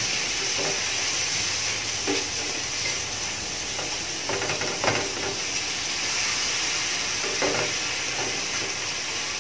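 Garlic, onion, tomato and bell pepper strips sizzling in hot oil in a frying pan, a steady hiss. A spatula scrapes and stirs through them a few times.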